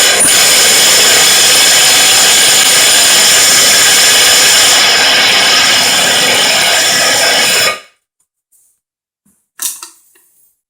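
Electric drill running a diamond hole saw into porcelain tile: a loud, steady whine with many tones that cuts off suddenly about eight seconds in. A short, sharp sound comes near the end.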